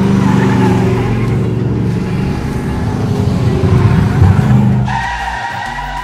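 Sports-car engine sound effect, revving as the car speeds past, loudest about four seconds in and fading away near the end.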